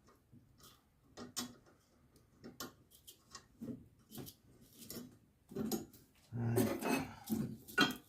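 Hand tools and steel parts clinking and knocking during a repair: scattered light metal clinks and taps, busier and louder in the last few seconds.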